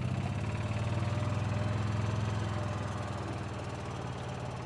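Golf cart's small petrol engine running steadily as the cart drives along, with a fast low pulsing throb.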